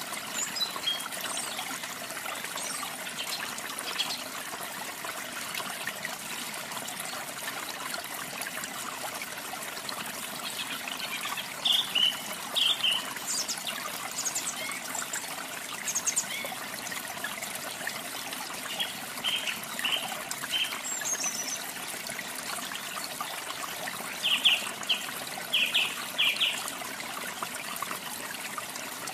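Steady trickling water of a stream or small waterfall, with small birds chirping over it in short runs of quick chirps about twelve seconds in, around twenty seconds, and loudest near the end.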